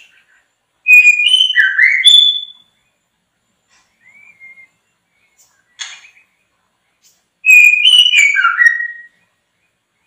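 A songbird whistling two loud phrases about five seconds apart, each about a second and a half of quick sliding notes mixed with sharp clicks. A short soft whistle comes between them.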